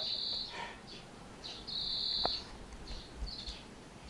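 Faint high-pitched animal calls: short steady buzzy notes, one at the start and a longer one of nearly a second partway through, with a single faint tick in between.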